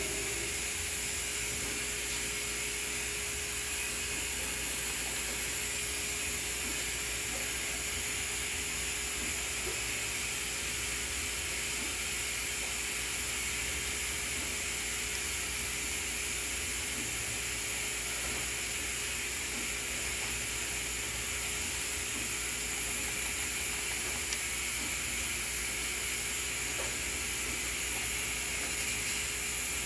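Steady hiss with a low hum and a faint steady tone underneath, unchanging throughout: background room tone and recording noise.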